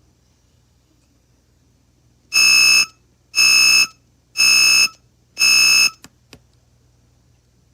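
Alarm-beep sound effect played back by a BY8001-16P MP3 module through a speaker: four loud beeps, about one a second, starting about two seconds in, followed by two faint clicks.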